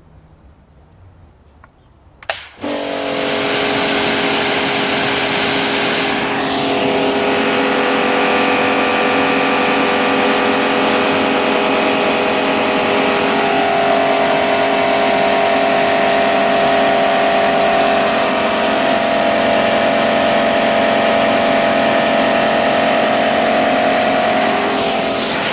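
Kärcher K7 electric pressure washer starting up suddenly about two seconds in, then running steadily: a motor-and-pump hum with several held tones under a loud, even hiss.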